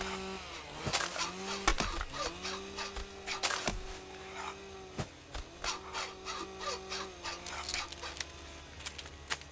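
Wood being worked: irregular wooden knocks and clacks with sawing and rubbing sounds. Under them a low tone slides up and holds several times.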